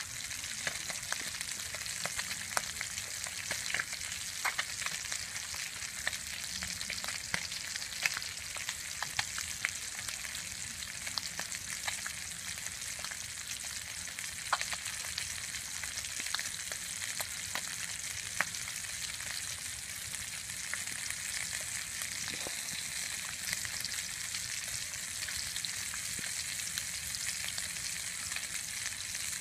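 Whole fish frying in hot oil in a pan: a steady sizzle with frequent small pops and crackles of spitting oil.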